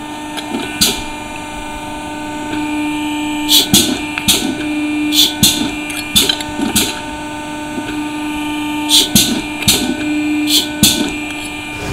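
Pipe end-forming machine running with a steady hum that swells slightly as it works on the pipe. Over the hum, stainless steel pipe sections clink and knock against each other and the tooling, about a dozen sharp clicks in clusters.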